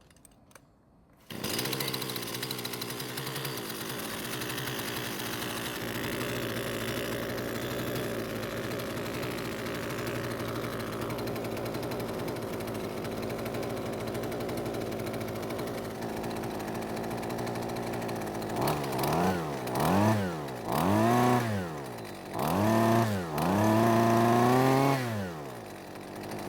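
Husqvarna string trimmer's small two-stroke engine starts up about a second in and idles steadily. Near the end it is revved up and down five or six times and drops back to idle each time without stalling, a good sign that the new ignition coil has cured the stalling.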